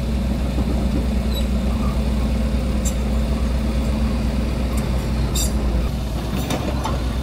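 Heavy diesel engine of a Doosan hydraulic excavator running steadily as the bucket digs soil and broken asphalt, with a few short scrapes and knocks. The low engine tone shifts slightly about six seconds in.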